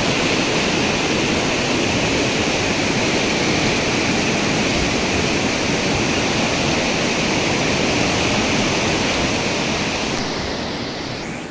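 Fast river water rushing steadily through a gorge, fading out near the end.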